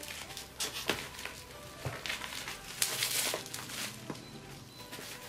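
Plastic bubble wrap crinkling and rustling as it is handled and pulled apart, with scattered sharp crackles and a louder rustle about three seconds in.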